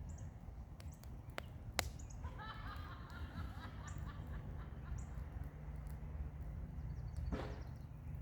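Campfire crackling, with a few sharp pops, the loudest about two seconds in. A bird calls in a short run of repeated notes about two and a half seconds in, over a steady low rumble.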